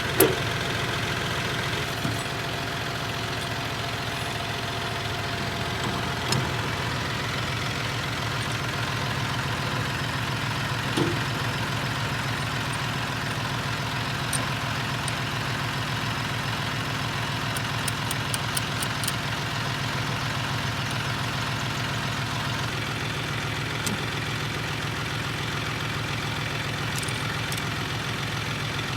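Farm tractor's diesel engine idling steadily, with a few light knocks along the way.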